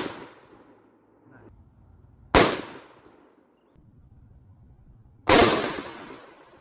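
Two shots from a short-barreled rifle firing reloaded .223 rounds, about three seconds apart, each ringing off in a short echo. The tail of an earlier shot fades out at the start.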